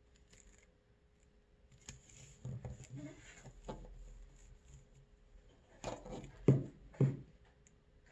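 Hands pressing and smoothing a paper pattern onto a crocodile hide: soft rustling and rubbing, with a few short knocks near the end.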